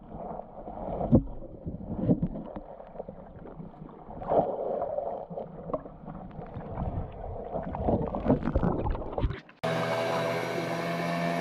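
Muffled underwater sound of moving water with irregular knocks and thumps, heard through a submerged camera. About ten seconds in, it cuts to a small boat's outboard motor running steadily as the boat passes.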